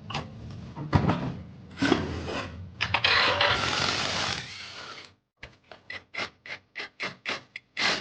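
Hand tools working on a scooter's rear wheel during its removal: uneven scraping and rubbing, loudest for a second or so in the middle, then after a short pause a run of quick, even strokes at about three to four a second.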